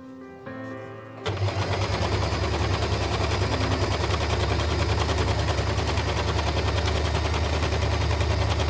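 Usha electric sewing machine running fast, sewing a straight seam at a long stitch length (3 to 4). It makes a rapid, even needle clatter over a low motor hum, and starts abruptly about a second in after a moment of background music.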